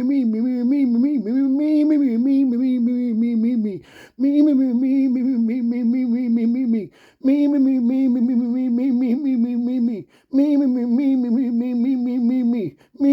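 A single voice humming or chanting on one nearly steady pitch with slight wavers, in long phrases broken by short pauses for breath about every three seconds.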